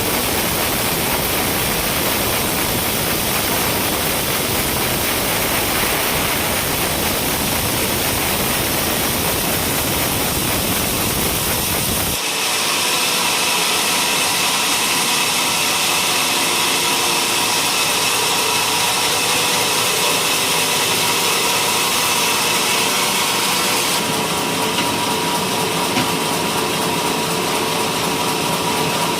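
Sawmill machinery running steadily while coconut-palm timber is sawn. The sound changes abruptly about twelve seconds in, from a dense rushing noise to a steadier hum with several held tones, and shifts again a few seconds before the end.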